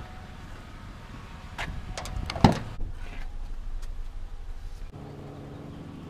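Clicks and a sharp thump of a car door being worked, the thump about two and a half seconds in, followed by rustling handling noise. A steady low hum sets in about five seconds in.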